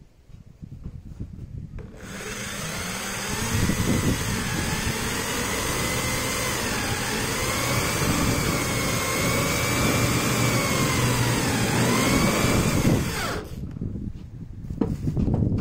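Corded electric drill driving a self-drilling screw into a metal roofing sheet. The motor whine starts about two seconds in and wavers, dipping in pitch as the screw bores through and bites. It winds down with a falling pitch near the end.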